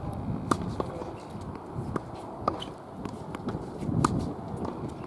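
Tennis ball being struck by a racket and bouncing on a hard court during a groundstroke rally: several sharp pops spaced about one to one and a half seconds apart, over a low outdoor rumble.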